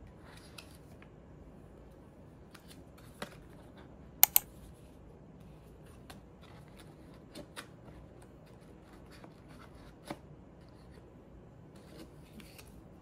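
Paper wrap and cardboard tray of a MacBook Pro box being handled: light rustling with scattered clicks and taps, and a sharp double click about four seconds in.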